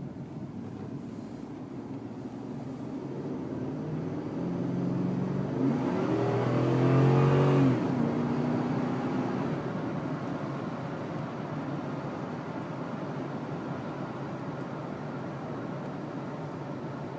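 A motor vehicle's engine swelling in level and rising in pitch to a peak about seven seconds in, then its pitch drops and the sound fades away slowly.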